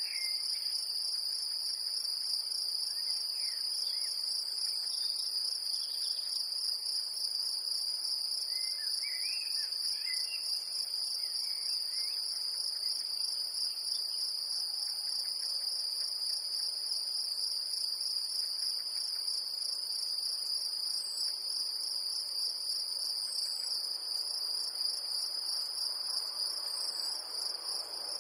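Great green bush-cricket stridulating: a continuous, fast, even buzzing trill that holds steady without a break.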